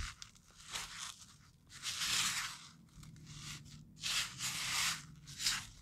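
Raw ground beef and breadcrumbs being squeezed and kneaded by hand in a foam meat tray: a few wet, tearing squishes a second or two apart, over a faint steady low hum.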